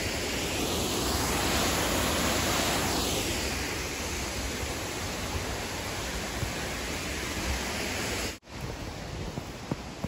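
Steady rushing of a nearby waterfall. About eight seconds in it cuts off abruptly and gives way to a quieter hiss with a few light ticks.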